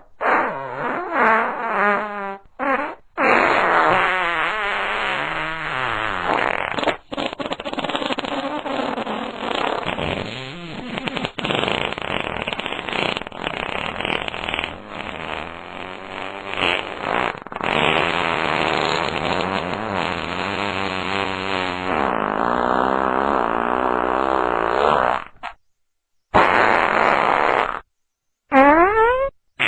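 A run of fart sound effects, one after another, their pitch wobbling and sliding up and down. The last few are shorter, with brief silences between them.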